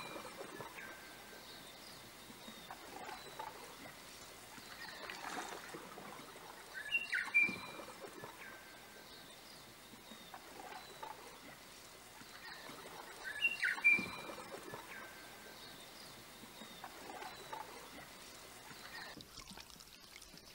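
Canoe paddles dipping and pulling through calm lake water in soft, uneven swells, with a short whistled bird call heard three times about seven seconds apart.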